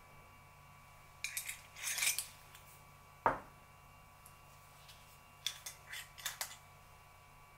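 Wooden spatula scraping and stirring mashed pumpkin with spices in a bowl, in a few short bursts, with one sharp knock about three seconds in.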